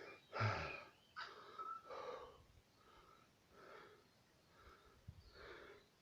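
A man's faint breathing between chanted lines: a louder breath about half a second in, then several soft breaths.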